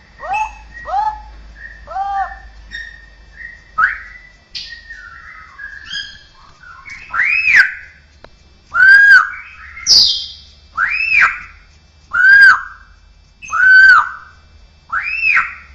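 Straw-headed bulbul (cucakrowo) singing an 'isian' song of mimicked sounds. It opens with a run of short rising-and-falling notes about twice a second, then from about seven seconds in gives a series of louder arched whistles, one roughly every second and a half.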